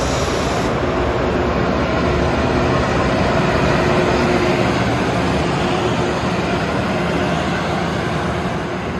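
JR Freight EH500 electric locomotive hauling a container train past at close range: a steady running noise of the locomotive and wheels on the rails, with a faint hum, loudest about four seconds in as the locomotive goes by.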